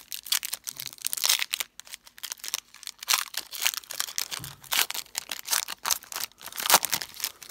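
Foil wrapper of a Panini Donruss basketball card pack being torn and peeled open by hand: a dense run of sharp crinkling and tearing crackles that stops near the end.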